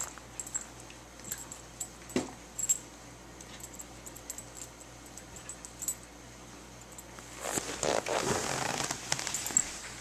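Two Border Collies, a young pup and an adolescent, playing on carpet: quiet scuffling with scattered small clicks, then a louder stretch of rough play noise lasting about two seconds, starting about three-quarters of the way through.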